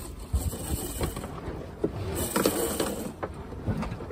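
A sailboat's mainsail hoisted by hand at the mast: the halyard rasps through its blocks in two hauls, with clicks and knocks from the rigging between them.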